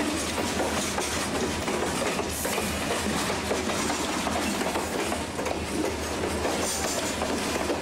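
Union Pacific freight train's covered hopper cars rolling past at close range: a steady noise of steel wheels running on the rails.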